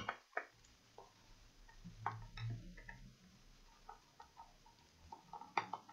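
Faint, scattered clicks and ticks of small screws and a screwdriver being handled against a laptop's metal bottom cover during disassembly, with one sharper click near the end.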